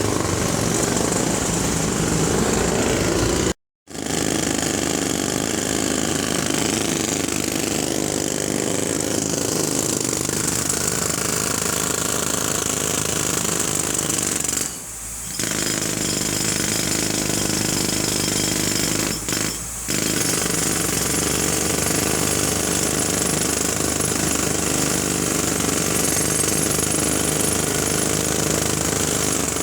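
Jackhammer hammering continuously and loudly. It cuts out abruptly for a split second a few seconds in, and eases briefly twice around the middle.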